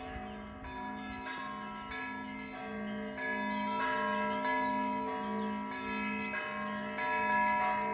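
Orthodox church bells ringing together: several bells struck in a steady rhythm, higher small bells over a lower bell sounding a little under twice a second, their tones overlapping and ringing on. The ringing grows louder about halfway through.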